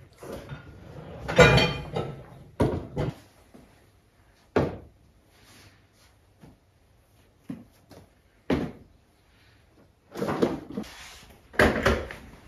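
Kitchen cupboard doors and things being handled: a string of separate knocks and clatters, about seven in all, the loudest about a second and a half in.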